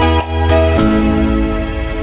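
Background music: a beat with strong bass that drops out under a second in, leaving soft held chords.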